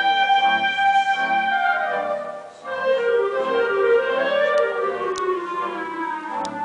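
Concert band of woodwinds and brass playing a slow piece: held chords, a brief break about two and a half seconds in, then the melody comes back in and sweeps downward.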